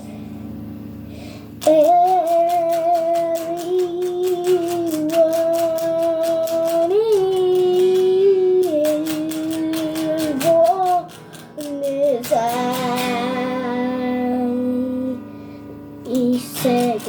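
Music: a high voice singing long held notes over a fast, even plucked-string accompaniment. The first second and a half is quieter, with only a low sustained instrument tone before the voice comes in.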